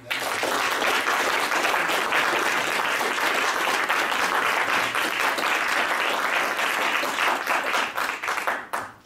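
Audience applauding, starting at once and dying away near the end.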